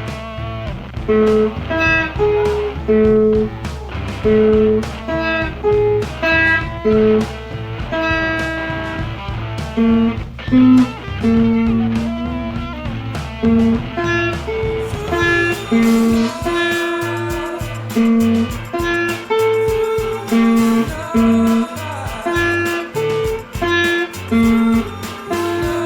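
Guitar music: a melody of single picked notes over a low sustained backing, which drops away about fifteen seconds in, leaving the picked guitar notes.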